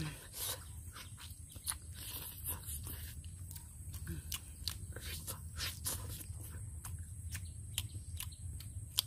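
A person eating a piece of cooked chicken by hand: scattered sharp clicks and smacks of chewing and handling the meat, over a low steady rumble.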